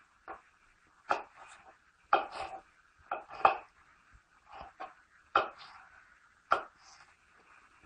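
Kitchen knife slicing a green bell pepper into strips on a plastic cutting board: about ten sharp, irregular taps as the blade cuts through and strikes the board.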